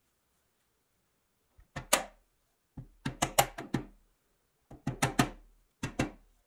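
Hammer tapping through a folded cloth on the roof of a pressed-steel toy truck cab, in four quick bunches of sharp knocks.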